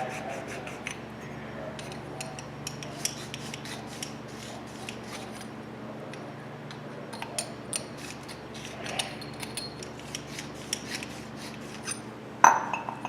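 Deburring tool scraping the freshly cut end of a pipe, inside and out: an uneven run of short scrapes and ticks. A sharper knock comes near the end.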